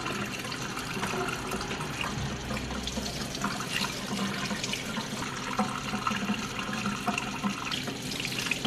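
Kitchen faucet running steadily, its stream splashing onto berries in a plastic colander in the sink as they are rinsed.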